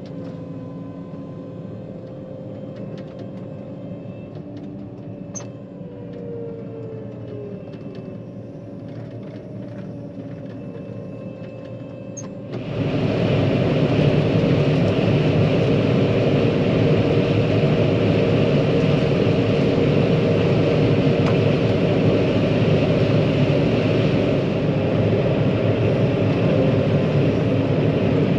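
John Deere 9500 combine running steadily as it is driven down the road, heard from the cab. About halfway through, the sound jumps suddenly to a much louder, even rushing noise that holds steady to the end.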